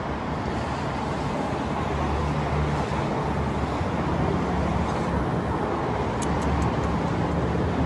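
Steady outdoor city background noise, a continuous traffic-like rumble with an on-and-off low hum, and a few faint short ticks a little after the middle.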